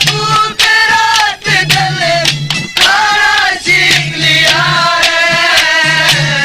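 Haryanvi ragni folk music: a melodic lead line with wavering pitch over sharp drum strikes.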